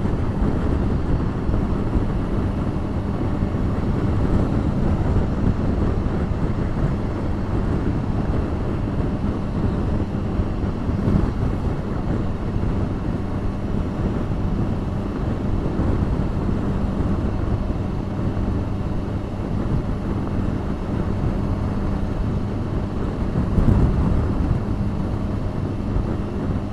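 Motorcycle running steadily at road speed, its engine a low steady hum under the rush of wind over the microphone.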